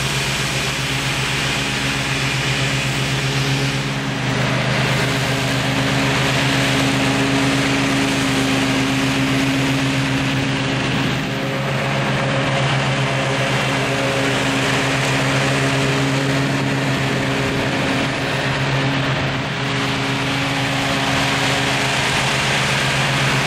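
Zero-turn riding mower's engine running steadily while it mows grass, its note shifting slightly about four seconds in and again around eleven seconds.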